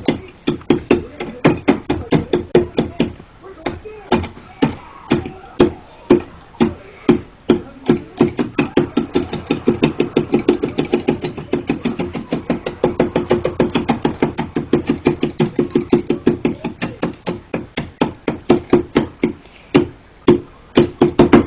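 Crackers being crushed in a bowl with rapid repeated strikes, about five a second, each hit making the bowl ring with a low tone. There is a short pause about three seconds in.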